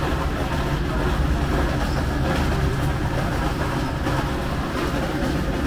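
A steady low mechanical rumble.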